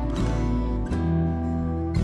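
Instrumental background music with sustained notes, changing chord about a second in.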